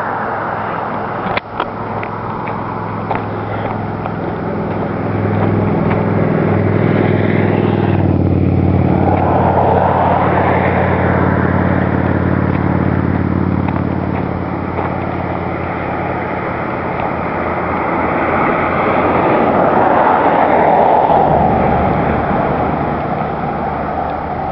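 Motor vehicles passing on the road: an engine hum builds and fades over several seconds, and a second passing swell rises and falls about twenty seconds in.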